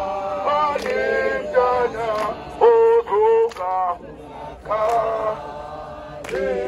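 Men singing a chanted protest song, led by a man singing through a handheld megaphone, in short phrases with held notes.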